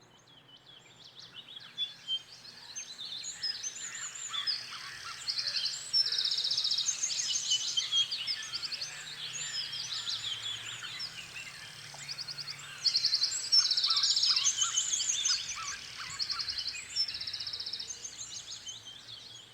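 Many small birds chirping and twittering, with repeated rapid trills, building up over the first few seconds and loudest about two-thirds of the way through, over a faint low hum.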